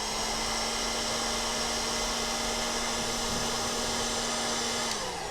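Electric heat gun blowing hot air, most likely to shrink heat-shrink sleeving over a freshly crimped wire connector. It spins up, runs steadily with a motor whine and air hiss, then winds down with falling pitch about five seconds in.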